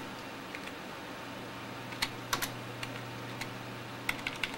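Computer keyboard keys pressed one at a time to step through a BIOS setup menu. There are a handful of sharp clicks, mostly in the second half, over a steady low hum.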